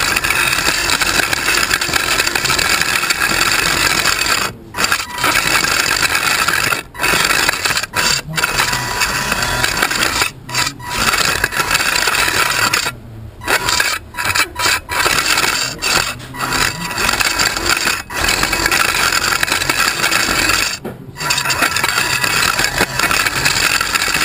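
Drive motors of a 1 lb combat robot running, heard through the chassis it is mounted on, with the robot's low front plate rubbing and scraping along a hard floor. The noise cuts out briefly several times as the robot stops and starts again.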